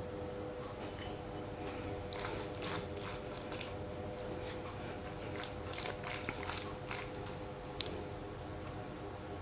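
Fingers working raw chicken pieces with a garlic-coriander paste in a bowl: a run of soft wet squelches and small clicks, with one sharper click near the end, over a faint steady hum.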